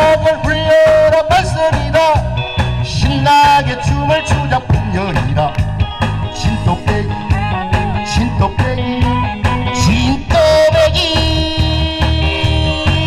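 Korean trot song with a steady beat: a man singing into a microphone over a recorded backing track.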